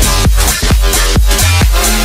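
Electronic dance music with a deep, sustained bass and a steady drum beat of a little over two hits a second.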